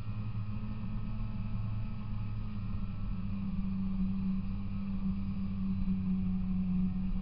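Polaris Indy 340 snowmobile's two-stroke engine running at a steady cruising speed, heard from aboard the sled as it rides across packed snow. The engine note holds nearly even, drifting only slightly up and down.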